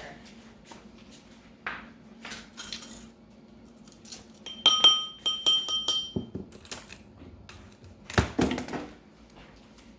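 A spoon clinking and tapping on kitchenware while sugar is measured: scattered small knocks and scrapes, three quick ringing taps about halfway through, and a louder knock near the end.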